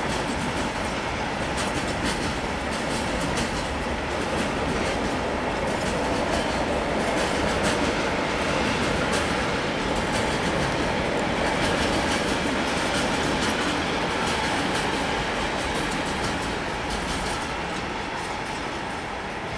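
Freight train of open-top goods wagons rolling past, with a steady rumble of wheels on rail and clacking as the wheels cross the rail joints. It grows slightly quieter near the end.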